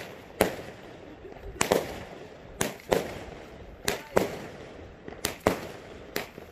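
A 25-shot consumer fireworks cake firing shot after shot: about a dozen sharp reports at uneven spacing, some in quick pairs.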